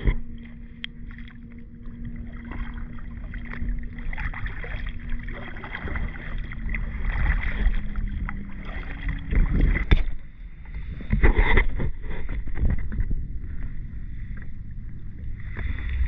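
Kayak paddles dipping and splashing in shallow water, with irregular knocks and drips, the loudest strokes coming about ten and eleven seconds in. A faint steady hum runs through the first half.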